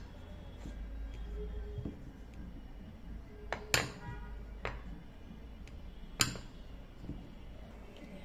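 Dishes clinking against a ceramic plate: a few sharp clinks, the two loudest ringing briefly, about four and six seconds in.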